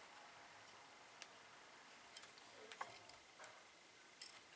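A handful of faint, light metallic clicks and ticks, scattered and irregular, as a restored jeweler's saw frame is handled at its blade clamps; the sharpest comes just before three seconds in and another just past four.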